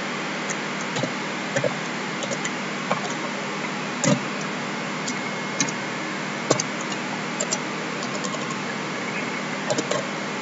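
Typing on a computer keyboard: irregular short keystroke clicks over a steady background hiss.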